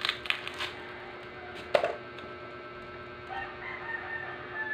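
A rooster crowing in the background: a faint held call starts about three seconds in. Earlier, a few sharp clicks and one loud knock come from items being handled on the table.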